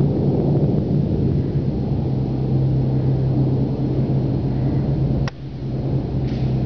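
Steady low hum and rumble of background noise, broken by a sharp click about five seconds in, after which it goes briefly quieter.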